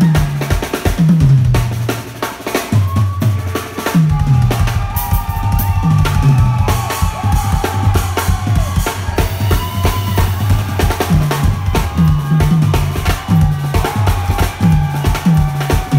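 Pearl drum kit played live: a fast, dense groove of bass drum, snare and cymbal hits.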